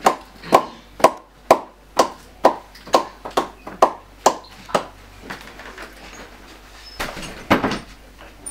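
Knocking on a wooden door: about a dozen sharp knocks at roughly two a second that stop about five seconds in, then, after a pause, a couple of louder hits near the end.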